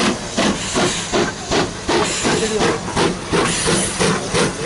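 Steam locomotive working, its exhaust beating in an even rhythm of about three chuffs a second, with steam hiss between the beats.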